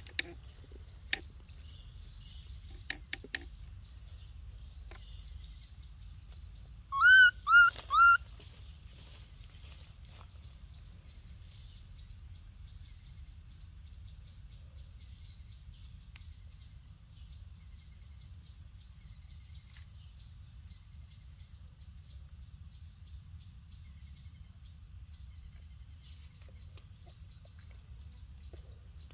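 Forest ambience with a bird chirping short high notes over and over, about one a second, over a steady low rumble. About seven seconds in there are three loud arched calls in quick succession, and a few light clicks come in the first few seconds.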